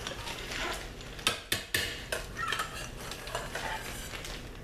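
A utensil scraping, stirring and knocking inside a ceramic slow-cooker crock as thick, foamed-up soap batter is worked back down. It gives a run of scrapes with a few sharp clinks about a second and a half in.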